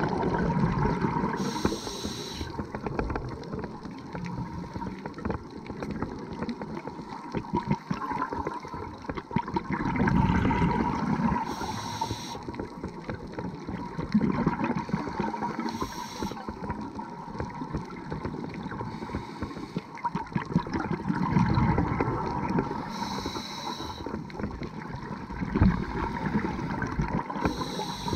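Scuba diver's regulator breathing heard underwater: a short hiss on each inhale and a low gurgling rush of exhaled bubbles, repeating over several slow breaths, with a faint steady hum underneath.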